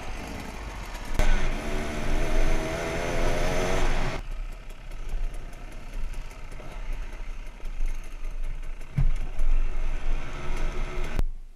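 Two-stroke Husaberg TE300 trail bike engine revving up as it pulls away, its pitch rising for about three seconds before breaking off suddenly. After that the bike runs along a dirt trail, a lower, rougher engine sound mixed with wind noise on the helmet camera and a few knocks.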